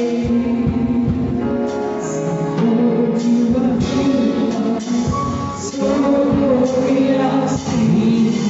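Music with singing over instruments and drum hits.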